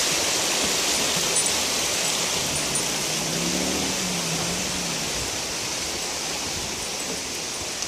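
Rushing river water: a steady hiss that slowly fades. A faint low wavering hum comes in around the middle.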